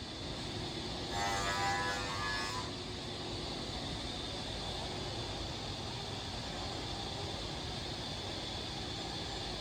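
Holztek HT-1830x2RBS CNC router running: a steady mechanical noise with a faint high hum. About a second in, a higher-pitched whine comes in for a second and a half.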